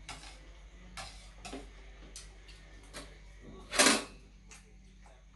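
Metal chopsticks and spoon clicking and tapping against stainless steel bowls and the serving tray while eating, a handful of separate light clinks, with one louder, longer scraping noise just before four seconds in.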